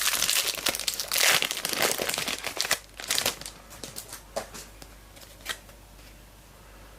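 A Select Footy Stars trading card packet wrapper crinkling and tearing as it is ripped open, dense for about three seconds, then a few scattered crackles that die away.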